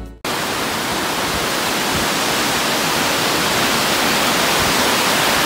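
Creek water rushing over rocks and through rapids, a steady even hiss, running fast after rain.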